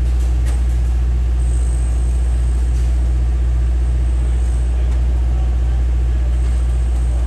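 Construction machinery engine idling with a deep, even drone that holds steady throughout.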